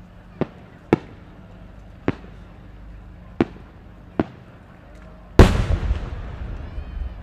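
Aerial fireworks: several short, sharp cracks of shells going off, then about five seconds in a large 12-inch aerial shell bursts with a deep, loud boom that rumbles away over the following seconds.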